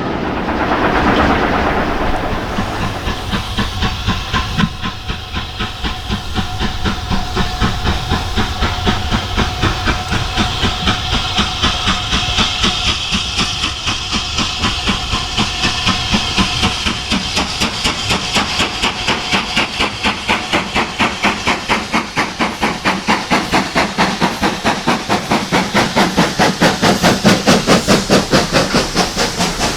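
Steam locomotive working a train, its exhaust beats coming in a steady rhythm of about three a second over a hiss of steam.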